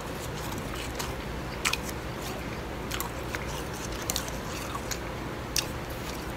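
Blended bag ice being bitten and crunched in the mouth: a handful of sharp, separate crunches, the loudest about one and a half seconds in and again near the end, over a steady low hum.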